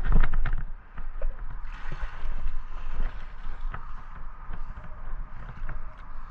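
Wind rumbling on a body-worn camera's microphone, with a cluster of sharp knocks at the very start as the magnet-fishing rope is thrown, then hiss and scattered clicks of handling and movement.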